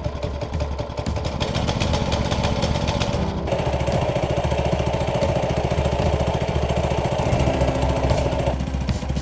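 Mini bike's small engine running with a fast, steady firing pulse, its note changing about a third of the way in and again near the end.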